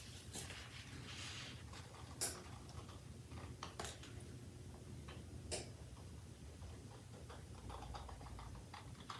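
Light handling noise: a few faint, sharp clicks, spaced irregularly, and soft rustling over a low steady hum.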